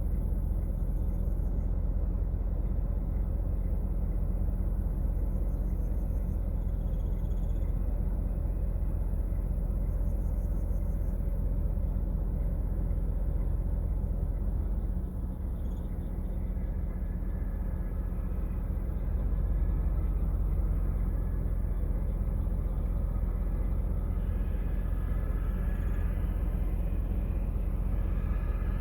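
Steady low vehicle rumble at a roadside, dipping slightly about halfway through, with faint higher tones near the end.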